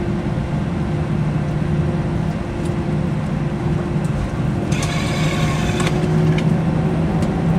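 Steady low hum of an Airbus A321's engines and airframe heard inside the passenger cabin as the jet taxis. About five seconds in, a high, buzzy tone sounds for about a second and cuts off.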